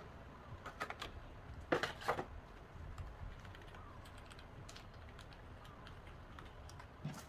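Typing on a Keychron K3 low-profile mechanical keyboard: irregular key clicks, with a few louder clacks about two seconds in and lighter, quicker ticks afterwards.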